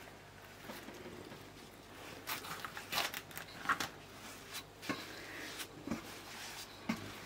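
Risen yeast dough being punched down and worked by hand in an enamel basin: irregular sticky squelches and slaps of fingers pressing into soft dough, beginning about two seconds in.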